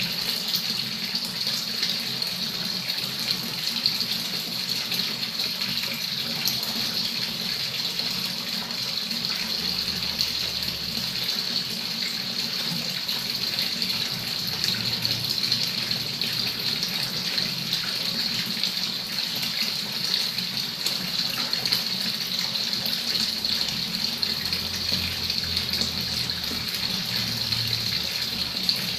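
A stream of water from a tap pouring steadily and splashing into a pond's water.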